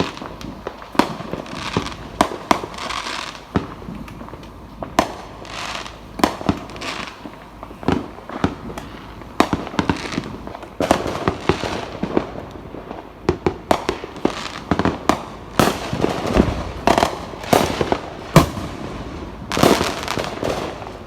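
Fireworks going off: a steady run of sharp pops and bangs, some in quick clusters, several followed by a fizzing crackle.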